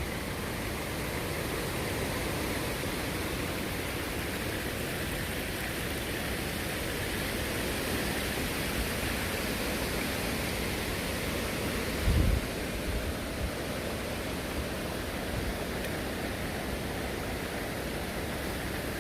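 Steady rushing noise with no tone in it, with a brief low thump about twelve seconds in.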